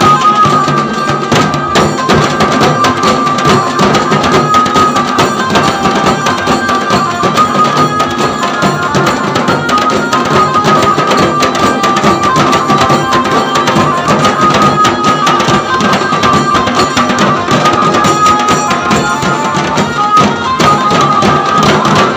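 A dhol-tasha band playing a fast, dense, unbroken rhythm: large double-headed dhol drums beaten with sticks and smaller tasha drums rattling over them. A Casio keyboard carries a sustained high melody on top.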